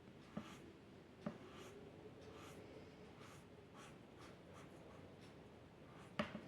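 Faint scratching of a drawing tool on paper: a run of short strokes, with light taps about half a second in, just over a second in, and near the end.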